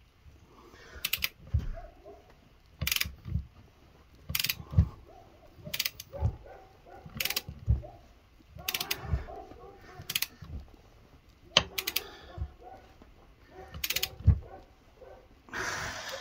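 Long-handled half-inch-drive ratchet clicking in short bursts about every second and a half, with a low knock and creak from the clamped axle flange on each pull. The ratchet is tightening a nut over a stack of washers to draw a new wheel stud into the axle flange.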